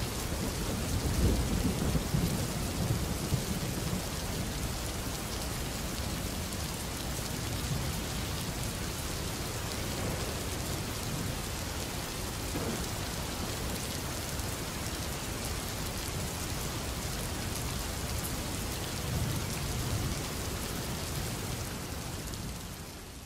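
Steady heavy rain with low rolls of thunder, the rumbling strongest in the first few seconds and again near the end, then fading out.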